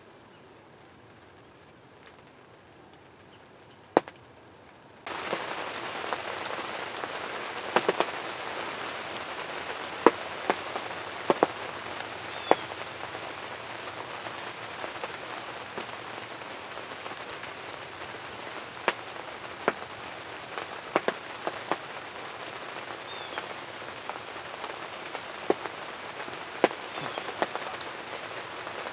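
Steady rain hiss with scattered sharp drop taps close to the microphone. It starts abruptly about five seconds in, after a quieter stretch broken by one sharp tap.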